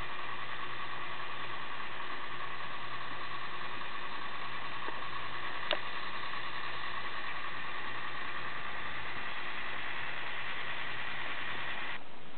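Lego Technic 42055 bucket wheel excavator's motor and plastic gear train running steadily, turning the bucket wheel, with a steady whine over a low hum. There is one short click about halfway through, and the motor whine stops near the end.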